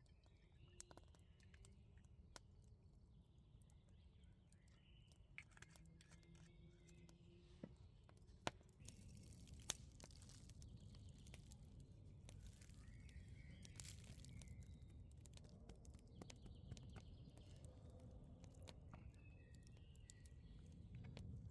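Quiet forest ambience: faint birdsong with short chirps throughout, scattered small clicks and crackles, and a low steady rumble that rises a little about halfway through.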